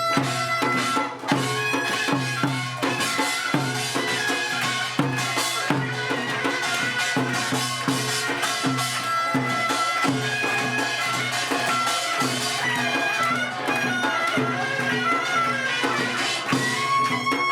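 Korean traditional processional music: a reedy wind-instrument melody over steady drum beats.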